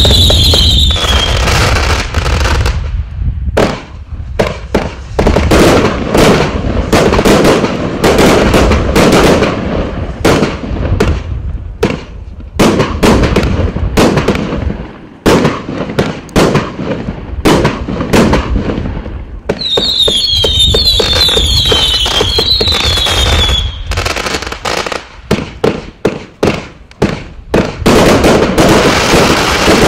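Riakeo Pyro Addict 3, a 71-shot firework cake with 20, 25 and 30 mm tubes, firing in rapid succession: launch thumps, bursts and crackle. Whistles falling in pitch sound at the start and again about twenty seconds in.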